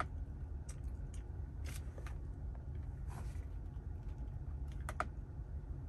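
Scattered faint clicks from the Tesla Model 3's right steering-wheel scroll wheel being tilted to step the autopilot following distance, the clearest two close together about five seconds in, over a steady low hum.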